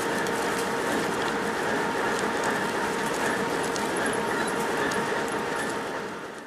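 2TE116 twin-section diesel locomotive's V16 diesel engines running steadily, a constant tone sitting over the engine noise. The sound fades out near the end.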